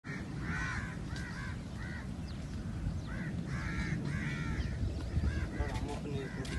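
Crows cawing, a series of harsh calls in quick succession, with a few faint higher chirps from smaller birds, over a steady low rumble.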